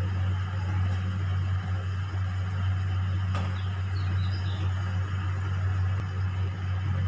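Gujiyas frying in ghee in a kadai, a steady sizzle over a constant low hum, with one sharp click of the slotted spoon against the pan about three seconds in.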